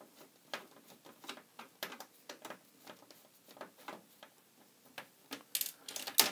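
Screwdriver backing a screw out of a broken plastic standoff held in pliers, with irregular small clicks and creaks against the plastic Atari ST case. Near the end comes a louder scrape and a sharp clack as the pliers are put down on the case.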